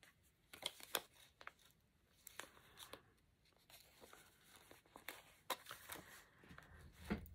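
Faint rustles and soft taps of paper and cardstock as journal pages, a fold-down flap and a tucked tag are handled, in a scatter of brief separate sounds.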